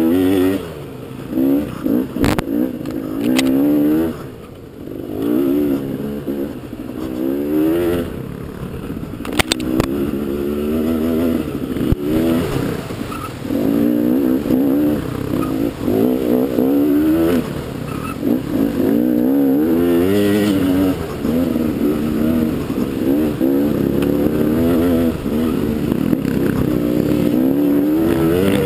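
Dirt bike engine revving up and down over and over as the throttle is worked through rough trail, its pitch rising and falling every second or two. A few sharp knocks come through in the first ten seconds.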